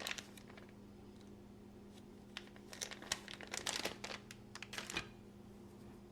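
Small handling noises at a workbench: a click at the start, then clusters of light crinkling and ticking between about two and five seconds in, as with a paper towel or wipe being handled for alcohol. A faint steady hum runs underneath.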